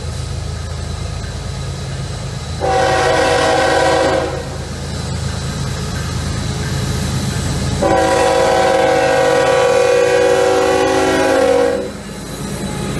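Freight train locomotive's air horn sounding twice: a short blast about three seconds in, then a longer blast of about four seconds later on. Underneath is the steady low rumble of the passing train.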